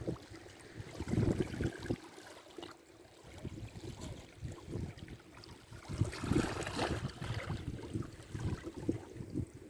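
Sea waves washing on a beach, with wind buffeting the microphone in uneven low gusts; a wave washes in louder about six seconds in.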